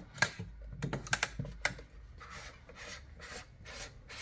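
Objective lenses being unscrewed by hand from an Olympus SZX10 stereo microscope's dual nosepiece: a few light clicks and knocks of metal parts in the first two seconds, then a rhythmic rubbing about twice a second as the threaded parts are turned.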